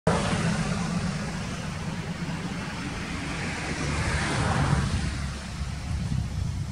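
Road traffic noise: a steady low rumble, with a passing vehicle swelling and fading about four to five seconds in.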